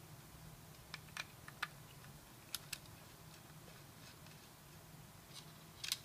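Scattered light clicks and taps of small metal parts being handled: a laptop optical drive and its screws. A few single clicks come in the first three seconds, and a quick louder cluster comes near the end.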